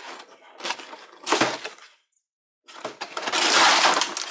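A toy's box being opened by hand: a few short scrapes and knocks, a brief pause, then a longer, louder stretch of rustling and tearing packaging.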